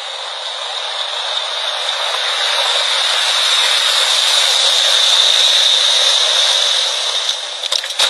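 Car tyres rolling over a gravel driveway: a steady hissing crunch that slowly grows louder as the car approaches, then falls away just before the end as it stops.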